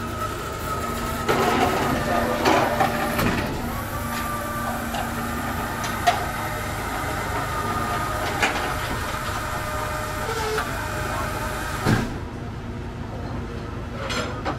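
Hydraulic ramp of an enclosed car-hauler trailer running as the ramp lowers: a steady mechanical hum with a few sharp metal clanks from the chains. The pump noise drops away about twelve seconds in.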